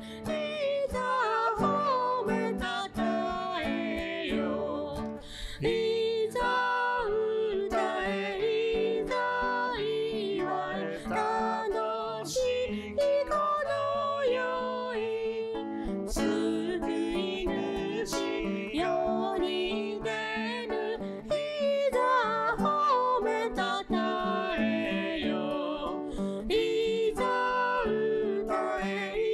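Music: a song led by acoustic guitar, with notes plucked at an even pace.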